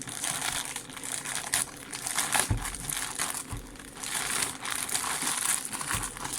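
Protective wrapping around a new phone's box being pulled open by hand, crinkling irregularly, with a few soft knocks.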